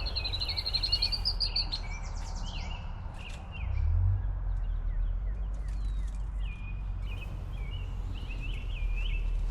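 Songbirds singing in the open: a fast trill in the first second and a half, then repeated short chirping phrases. A steady low rumble runs underneath and swells briefly about three and a half seconds in.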